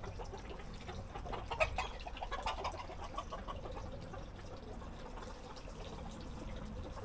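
Chickens clucking in short, quick runs of calls, busiest a couple of seconds in.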